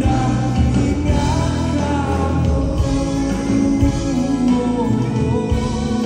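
Live band playing through a venue's PA, heard from within the audience: acoustic guitar, bass guitar, keyboard and drum kit, with singing over them.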